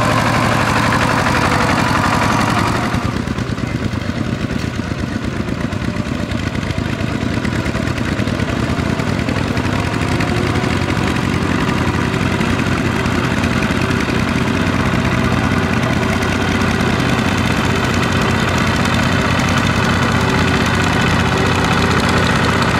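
Single-cylinder diesel engine of a two-wheel walking tractor running steadily under load as it plows wet paddy mud. The sound turns slightly quieter and duller about three seconds in.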